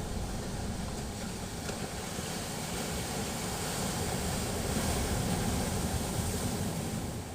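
Sea waves surging onto the shore: a rush of surf with a low rumble that builds over several seconds and dies away near the end.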